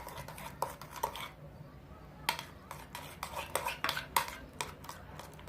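A spoon stirring slime in a bowl, clinking and scraping irregularly against the sides as borax activator is mixed into the glue. The mixture is thickening into lumps.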